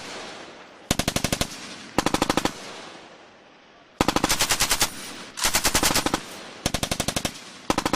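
Machine gun firing short bursts, six in all, each about half a second to under a second long, the shots coming quickly one after another within each burst.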